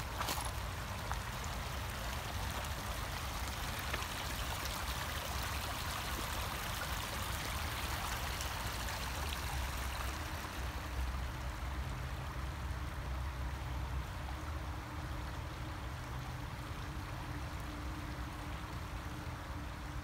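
Steady rush of running water, with a low rumble underneath and a faint low hum joining about halfway through.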